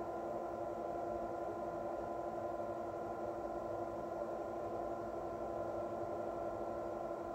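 Steady low hum of room tone, with a few faint fixed tones in it and no distinct handling sounds.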